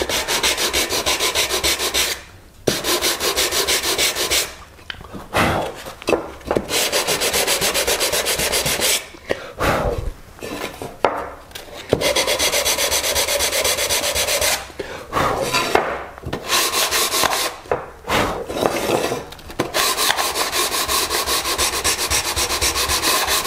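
Sandpaper rubbed rapidly back and forth on an oak box, in runs of a few seconds broken by short pauses, flattening a joint where one side stands slightly proud of the other.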